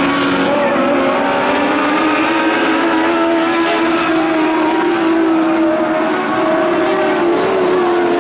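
A pack of small dirt-track race cars running together at racing speed, several engine notes overlapping in a steady, continuous drone.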